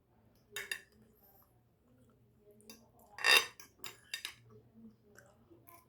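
Cutlery clinking and scraping against a plate while eating: a few light knocks, with one louder clink about three seconds in.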